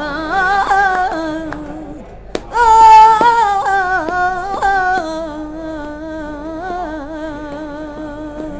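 A woman singing flamenco without accompaniment: a slow, wordless line of long held notes, each wavering and ornamented. A louder, higher phrase begins about two and a half seconds in, just after a sharp click, then the voice settles back onto a long held low note.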